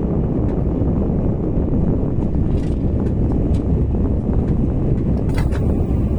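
KTX high-speed train running at speed: a steady, deep rumble, with a few faint clicks through it.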